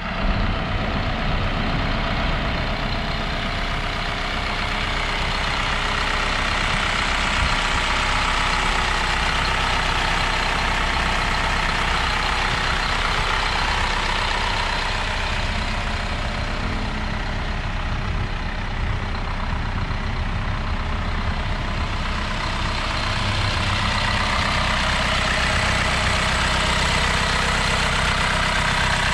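2016 Isuzu NRR's four-cylinder turbo diesel engine idling steadily, heard close up at the open engine bay.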